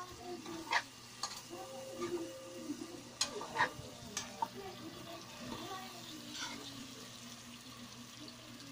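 Metal spoon stirring chicken caldereta in a wok, clinking and scraping against the pan several times over the soft sizzle of the simmering stew.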